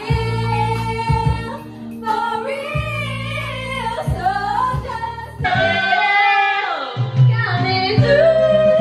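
Women singing karaoke into microphones over a pop backing track with a steady beat.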